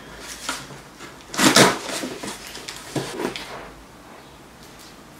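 Cardboard shipping box being handled: a few short scrapes and knocks, the loudest about one and a half seconds in.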